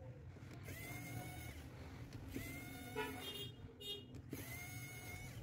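Pen-style electric precision screwdriver running in three short whirring bursts as it backs out small screws from a phone's internal frame.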